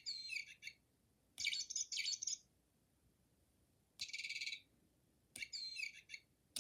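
Bird chirps in four short bursts, each about half a second to a second long, with pauses between them and a faint click at the start of each.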